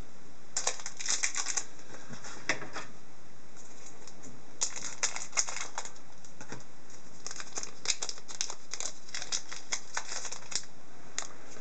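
Hockey card pack's plastic foil wrapper being handled and torn open, crinkling in bursts of quick crackles, with a short gap around the middle.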